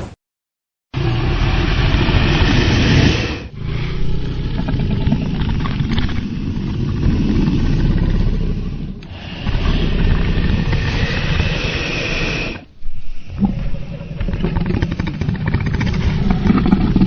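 Dragon creature sound effect: a series of deep, rough growls in four long stretches with brief breaks between them, starting after a second of silence.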